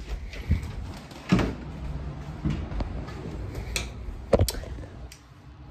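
Handling noise from a phone being picked up and moved: a low rumble with several sharp knocks and clicks, the loudest about a second in and again near the end.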